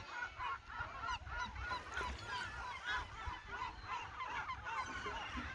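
Many seagulls calling at once, short arched cries overlapping without a break, over a low distant rumble.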